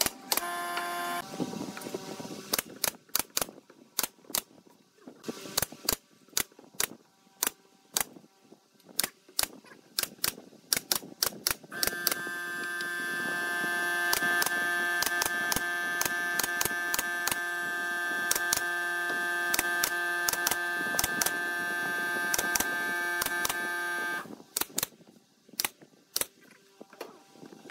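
Pneumatic brad nailer firing nails into pine boards: dozens of sharp single shots at irregular intervals. From about twelve seconds in to about twenty-four seconds a steady hum runs under the shots.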